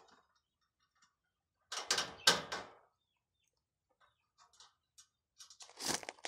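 Sheet-metal nesting box panels knocking and rattling as they are handled and fitted together: a cluster of knocks about two seconds in, a few light ticks, then another cluster near the end.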